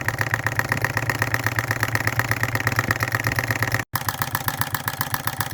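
Model Rider-Ericsson hot-air pumping engine running with a fast, even mechanical beat from its linkage and water pump. The pump has a new lathe-made seal and now runs at proper speed without drawing in air. The sound breaks off for an instant a little before four seconds in, then the same beat carries on.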